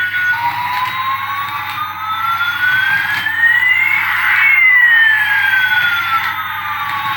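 A single siren-like tone gliding slowly up for about four seconds and then back down, over a steady hiss.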